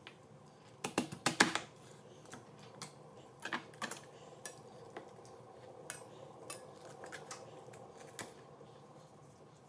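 Chef's knife knocking and tapping on a wooden cutting board while cutting up a raw chicken: a quick run of sharp knocks about a second in, two more a few seconds later, then lighter scattered taps.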